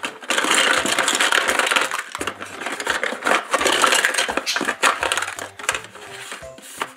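Plastic rustling and clattering as hands rummage inside the cabinet of a plastic toy barbecue grill. A dense crackle with many sharp clicks runs for about two seconds, pauses briefly, comes back for a few seconds more, and then thins out to scattered clicks.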